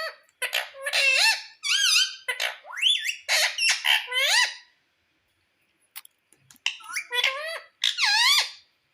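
Indian ringneck parakeet calling: a rapid series of squeaky calls that glide up and down in pitch, in two bouts with a pause of about two seconds between them.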